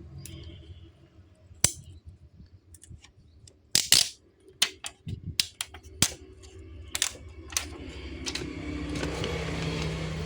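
Sharp, irregular clicks and taps of small hard parts and tools being handled on a work surface during phone repair, about a dozen in all, the loudest a pair about four seconds in. A steady low hum sits underneath.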